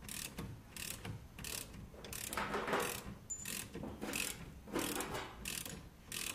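Ratchet spanner clicking in repeated strokes, about two a second, tightening the bolts that hold new flail chains on a muck spreader rotor.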